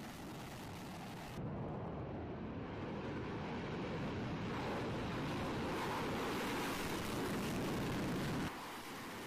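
F-16 fighter jets taking off and climbing out on afterburner, heard as a steady rushing jet noise. The noise steps up abruptly about a second and a half in and drops back near the end.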